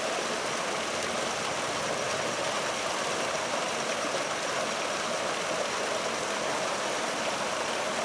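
Steady rushing background noise with no separate events or changes.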